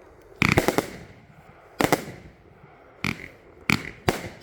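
J-Fireworks Miner A-B-C-D compound mine cake firing. Sharp bangs come in a quick cluster about half a second in, then a pair, then single shots about every half second to a second.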